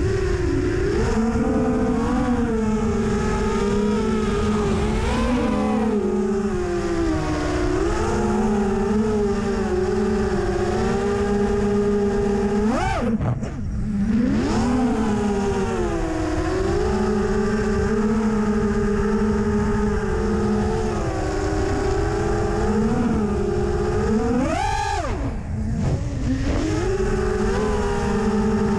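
Brushless motors and propellers of an FPV freestyle quadcopter, heard from its onboard camera: a steady multi-tone whine whose pitch rises and falls with throttle, over a rush of air noise. About 13 s and again about 25 s in, the whine drops sharply and sweeps back up as the throttle is cut and punched.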